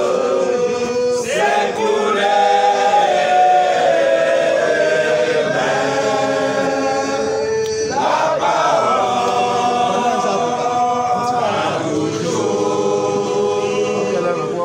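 A group of voices singing a worship song together without instruments, in long held phrases that break and start again a few times.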